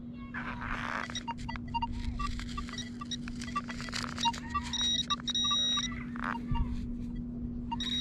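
Electronic beeps from a metal detector and its pinpointer over a steady low hum: many short blips, and longer high-pitched beeps about five seconds in and again near the end. The pinpointer is giving false signals near the Nokta Makro Legend. Scraping and rustling run underneath.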